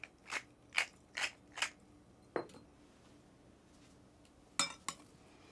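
Wooden pepper mill grinding: about five quick twists, each a short rasping crunch, about two and a half a second, then it stops. A single click follows a little after two seconds, and near the end come two short clacks of metal kitchen tongs.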